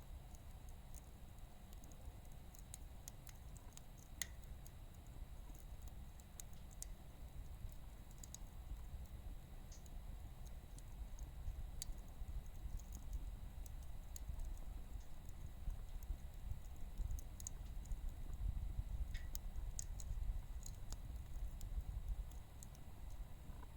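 Firewood crackling as it burns in a wood gas stove: scattered, irregular sharp pops and ticks over a steady low rumble.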